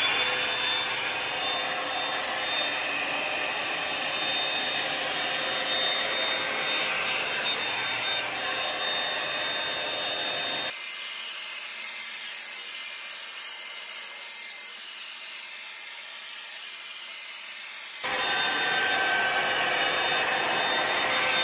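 Hot-air brush dryer switched on, likely at its high setting: its motor spins up with a quick rising whine, then runs steadily, blowing air as it is brushed through long hair.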